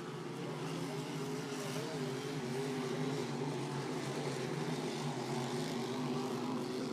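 Racing hydroplane engine running out on the course: a steady drone whose pitch wavers slowly up and down, growing slightly louder.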